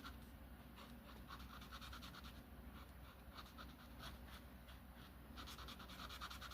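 Faint, rapid scratching of colouring strokes on paper, coming in short runs with brief pauses between them.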